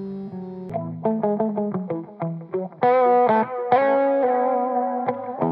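Electric guitar played through Source Audio effects pedals on the "Phase Driver" preset, a phaser with distortion: picked single notes and ringing chords. Under a second in, a held, sustained sound from the previous preset breaks off suddenly and the distorted playing starts.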